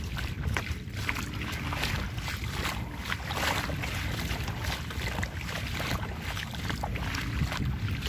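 Feet wading through shallow water, sloshing and splashing irregularly with each step, over a steady rumble of wind on the microphone.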